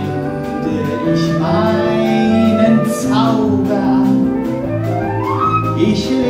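Stage-musical band music with held melody notes over chords and a light steady beat; about five seconds in, one line slides upward in pitch.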